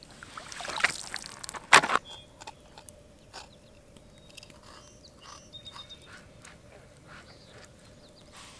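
Lake water splashing as hands rinse in it at the shore, with one loud splash just under two seconds in. Then small soft clicks and taps as a fish is handled and filleted by hand on a thin plastic cutting board.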